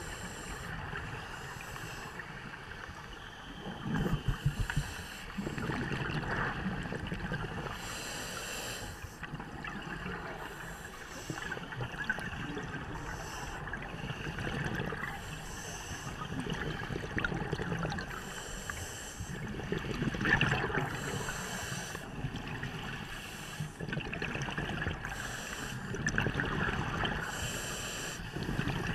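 Underwater sound picked up through a camera housing: a diver's breathing through a scuba regulator, with exhaled bubbles gurgling in irregular bursts every second or two over a steady muffled water noise.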